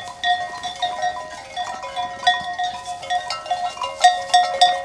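Sheep bells clanking irregularly as the sheep graze, a jumble of short ringing strikes at a few fixed pitches from more than one bell.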